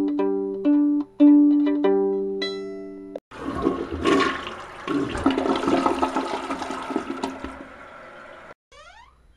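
A plucked-sounding alarm melody repeating, cut off suddenly about three seconds in. A toilet then flushes for about five seconds, the rushing water fading out. Quick rising glides follow near the end.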